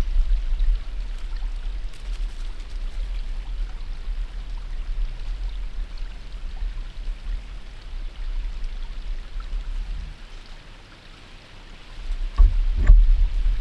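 A steady outdoor rushing noise over a heavy low rumble on the microphone. It falls quieter for a moment near the end, then returns louder with a couple of sharp knocks.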